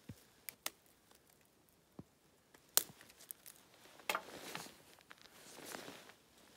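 Handling noises from gloved hands: scattered small clicks and taps, the sharpest about three seconds in, then two rustling swishes of a winter jacket about a second and a half apart.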